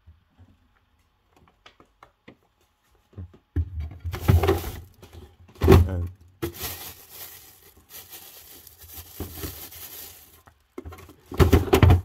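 Knocks and clatter of a plastic fridge drawer being handled, starting a few seconds in, then a long rustle of a plastic bag inside the drawer, and a few more knocks near the end.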